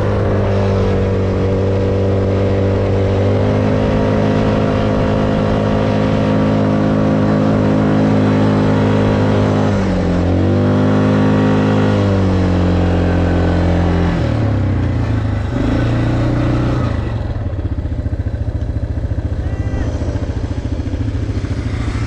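ATV engine running at a steady speed. About ten seconds in its pitch dips and climbs again as the throttle is eased off and opened. From about fourteen seconds on it runs at a lower, steadier pitch.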